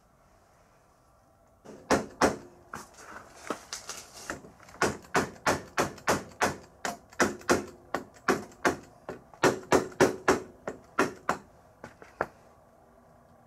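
Repeated hammer blows, about three a second for some ten seconds, knocking at a stuck part of a Kubota SPU500P rice transplanter's front axle to work it loose for disassembly. The blows start about two seconds in and stop near the end.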